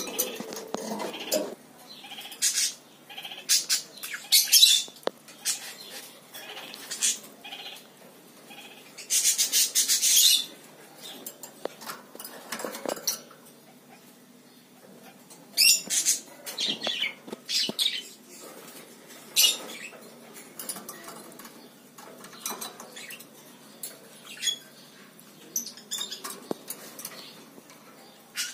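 Rainbow lorikeet giving short, harsh screeches and chirps at irregular intervals, with one longer, louder screech about nine seconds in. Small clicks and rattles of the wire cage come between the calls.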